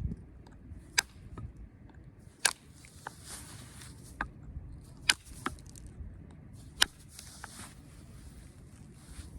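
Flint knapping: an arrowhead being worked by pressure flaking with a hand tool, giving sharp clicks as flakes snap off the stone, four loud ones and several lighter ones, with stretches of scraping in between as the edge is abraded.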